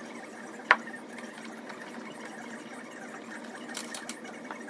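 Sped-up hand-work sounds from fitting a plastic air intake duct under a car's hood: a steady whirring haze with one sharp click about a second in and a brief rustle near the end.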